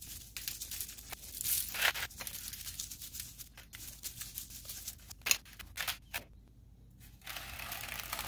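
Dry chicken rub shaken from a shaker bottle onto a whole chicken, giving irregular rustling shakes. The shaking pauses briefly about six seconds in, then goes on more steadily near the end.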